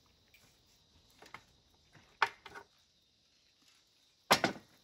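A car radiator from a Range Rover, partly cut open, being handled and lifted off a folding workbench: a few separate knocks, a sharp one about two seconds in, and the loudest clatter near the end.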